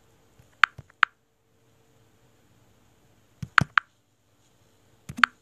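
Faint background broken by three quick clusters of two or three sharp clicks or taps: about a second in, midway, and near the end.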